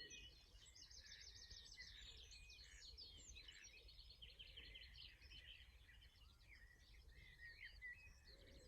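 Faint songbird chorus: several small birds singing continuous rapid, twittering phrases, over a low background rumble.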